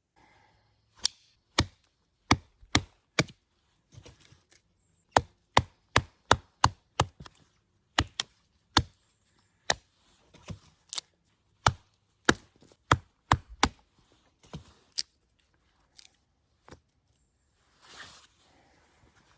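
A long series of sharp, separate knocks, coming irregularly about two a second, with a short scraping rustle near the end.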